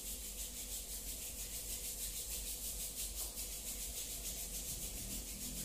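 Palms rubbed briskly together to warm the hands, a steady dry rubbing hiss.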